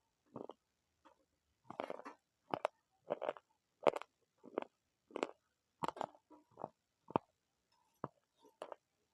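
Close-miked chewing of crunchy food in a mukbang: a string of short crunches, irregular, about one or two a second.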